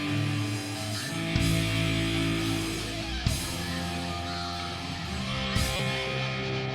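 A live rock band playing a loud instrumental passage led by distorted electric guitar chords over sustained low notes. A cymbal crash marks each chord change, about every two seconds.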